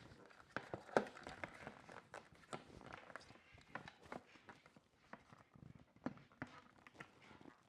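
Irregular small clicks, taps and knocks of hands handling the floodlight camera's mounting parts and fittings at close range, with the loudest knock about a second in.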